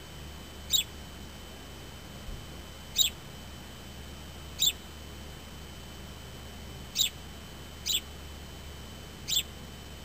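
A male house sparrow chirping: six short single chirps, spaced unevenly a second or two apart.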